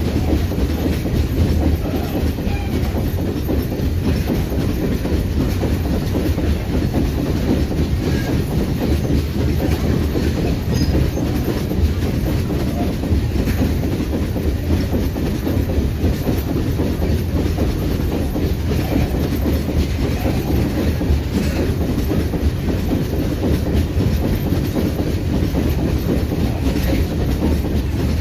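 Long freight train of open hopper wagons rolling past at a steady speed: a continuous deep rumble with the clickety-clack of wheels over the rails.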